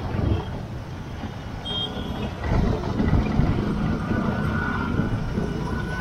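Riding a motor scooter in traffic: steady engine and road rumble, with one short high beep about two seconds in.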